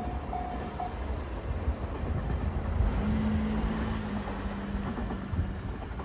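Wind buffeting the microphone over a low rumble from an electric train approaching down the line. A level-crossing alarm's repeating ding stops about a second in, and a steady low tone sounds for a couple of seconds in the middle.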